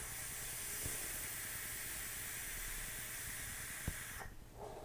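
A long drag on an e-cigarette: a steady hiss of air and vapour drawn through the atomiser for about four seconds, cutting off abruptly near the end. There is a small click just before it stops.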